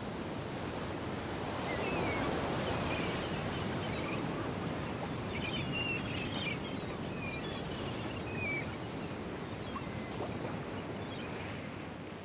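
Sea waves washing in a steady rush, with faint high chirping calls above it through the middle, fading down near the end.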